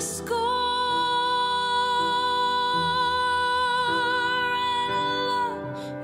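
Slow, tender ballad: a woman's voice holds one long high note with slight vibrato over soft sustained accompaniment, letting go about five and a half seconds in.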